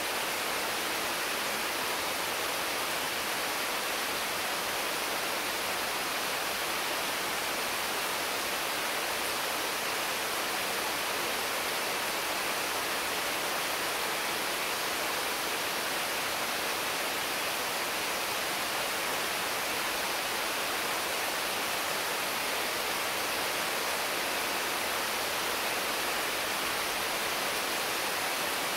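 Intense rain falling steadily on the leaves of mango and papaya trees, a constant even hiss with no separate drops or gusts standing out.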